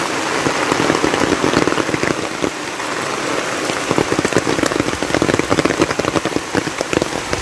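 Heavy monsoon rain pouring down, a dense steady hiss filled with many close individual drop hits.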